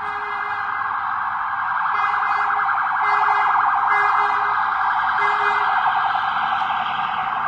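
Emergency vehicle siren going by on the street in a rapid warbling yelp, with several short horn blasts in the middle. It grows louder to a peak around halfway through and then begins to fade.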